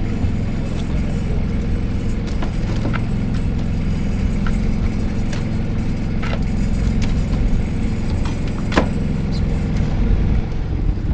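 A fishing boat's engine running steadily, with a few sharp metallic clicks and clinks from the wire crab traps being handled on deck.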